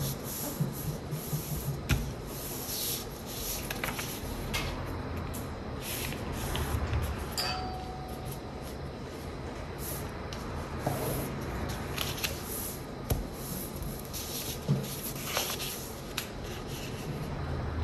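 Sheet of paper being folded by hand on a tabletop: irregular rustling and rubbing as fingers slide over it and press the creases flat, with a few short sharp clicks.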